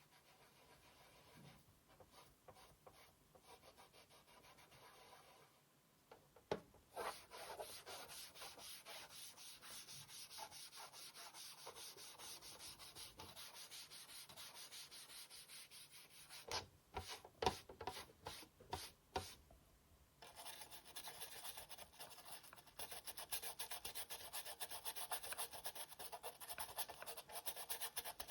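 Plastic PS4 Slim case shell being scrubbed with rapid back-and-forth rubbing strokes. The strokes are faint at first and get louder a few seconds in, with a few sharp knocks partway through.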